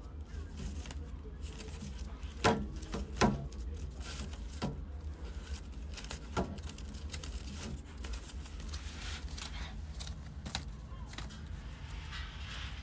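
Kittens scuffling as they play-wrestle: light scratching and scrabbling with a handful of sharp taps, the two loudest close together a few seconds in, over a low steady rumble.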